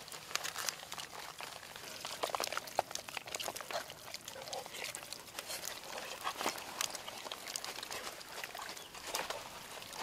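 Hands rubbing a wet chili seasoning over whole cooked chickens lying on banana leaves. The sound is soft, irregular squelches, rustles and little clicks.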